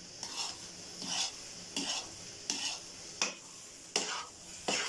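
Metal spoon scraping and stirring thick, nearly cooked suji halwa in a large aluminium karahi: seven strokes, about one every 0.7 seconds. A steady sizzle from the ghee in the pan runs underneath.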